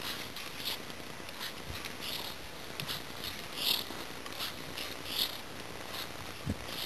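Ice skate blades scraping and gliding over natural lake ice, a hiss with each stroke, about three strokes every two seconds.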